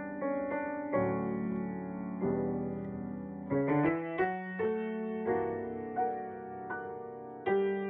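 Solo piano playing a slow ballad: full chords struck and left ringing, with a quick flurry of notes about three and a half seconds in.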